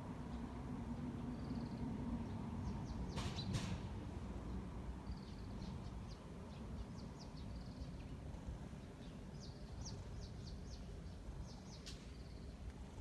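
Outdoor ambience with small birds chirping: scattered short, high notes that come in a quick run in the second half, over a low steady background hum. Two sharp clicks about three seconds in.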